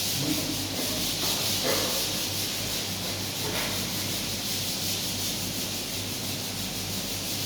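A steady hiss over a low, even hum.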